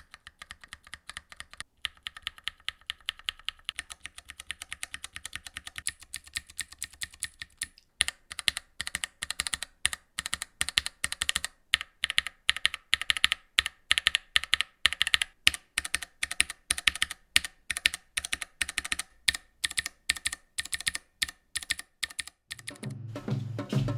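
Typing on a mechanical keyboard with linear switches: a fast run of clacking keystrokes. About eight seconds in the keystrokes become louder and sharper, and music comes in near the end.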